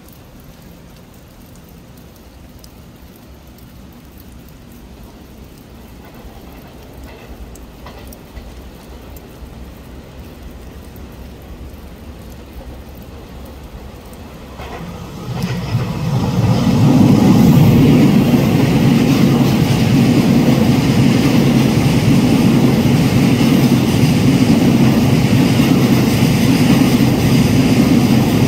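Taiwan Railways EMU3000 electric multiple unit train approaching, its rumble growing slowly louder. About halfway through it reaches the camera and runs past close by, with a loud, steady rumble of wheels on rails that carries on as the carriages go by.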